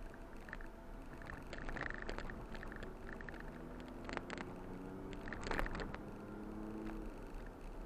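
Ford Bronco engine running as the truck drives a rough trail, with knocks and rattles from the cabin. The engine note climbs slowly as it picks up speed in the second half.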